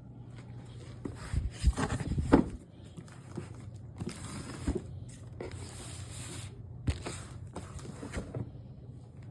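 Irregular scraping and rubbing handling noises with a few sharp clicks, over a low steady hum, the loudest a cluster about two seconds in.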